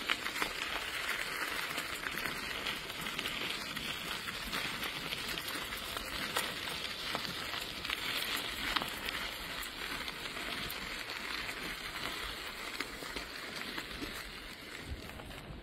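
Bicycle tyres rolling over a gravel trail: a steady crackling rustle with many small ticks from the stones.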